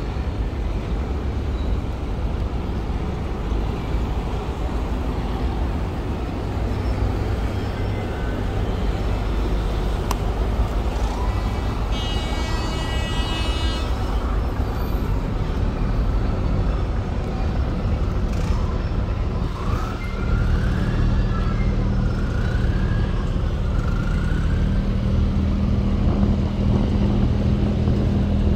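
Diesel engines of heavily loaded river barges running steadily, with a brief high horn blast about twelve seconds in. From about twenty seconds in a nearer engine's steady low hum grows louder.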